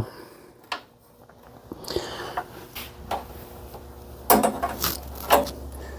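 Workshop handling noises: scattered clicks and knocks of tools or small parts being moved, with a louder clatter about four and a half seconds in. A low steady hum comes in about three seconds in.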